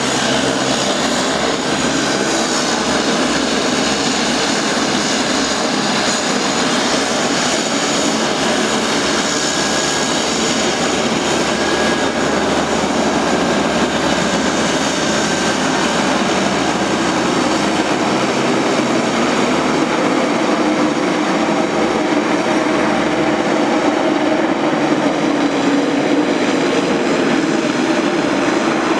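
Beech 1900D's twin Pratt & Whitney PT6A turboprop engines running, a loud steady turbine whine over propeller noise, as the aircraft begins to taxi.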